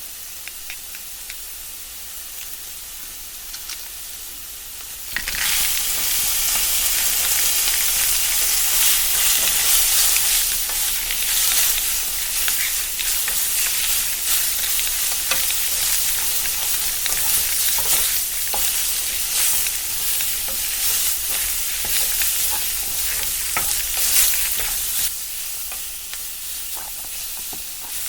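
A few light clicks, then from about five seconds in a steady frying-like sizzle with fine crackles, as the fried-rice-style slime is stirred in a pan. The sizzle eases slightly near the end.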